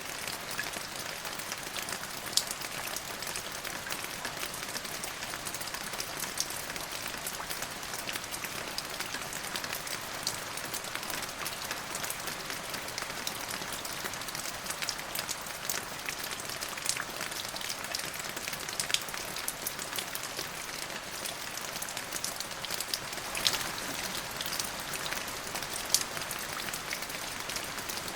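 Steady rain falling on a hard surface: an even hiss with scattered sharp drop ticks.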